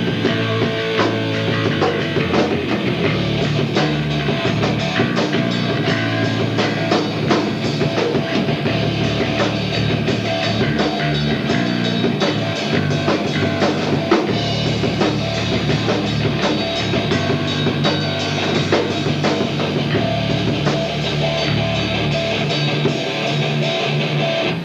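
Rock music with a full drum kit, bass and electric guitar playing steadily, cutting off abruptly at the very end.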